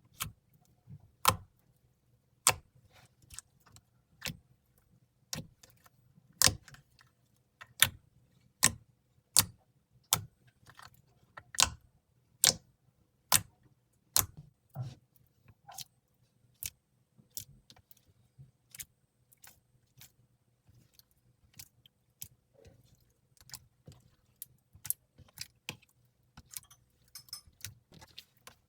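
Slime being pressed and worked by hand, giving sharp clicking pops about once a second, with a quicker run of faint crackles near the end.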